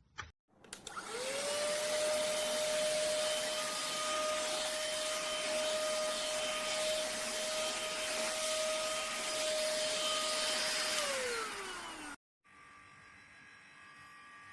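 Philips ST6101 cordless vacuum cleaner switched on with a click, its motor whining up to speed and running steadily for about ten seconds. It is then switched off, the whine sliding down in pitch as it winds down.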